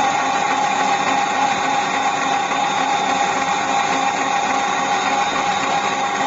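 Electric mixer running steadily at constant speed, beating butter and sugar in a stainless steel bowl, with a steady motor whine.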